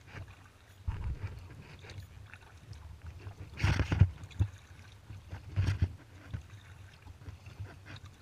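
Kayak paddle strokes dipping and splashing in the water, at an uneven pace, with the loudest splash about halfway through and another a couple of seconds later. A low rumble of wind on the microphone runs under it.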